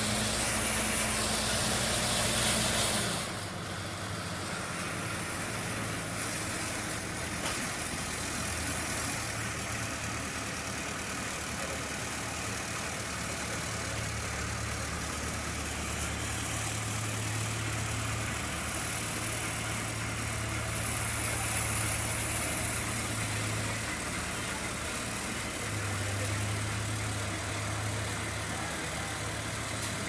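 Asphalt paver finisher's diesel engine running steadily, its low hum wavering slightly. It is louder for about the first three seconds, with a higher hiss over it.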